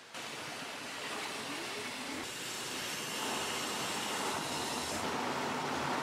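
A high-pressure water jet cuts in abruptly and sprays onto a Pelton wheel inside a converted washing-machine tub, making a steady rush of spray that grows louder over the first three seconds.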